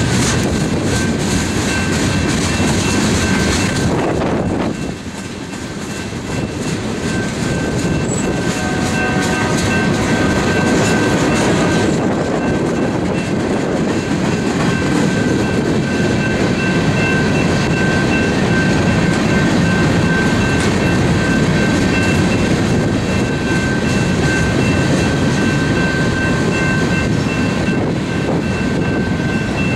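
Cars of a manifest freight train rolling past, their wheels rumbling steadily on the rails, with a thin steady high ringing tone above the rumble. The rumble drops briefly about five seconds in, then comes back.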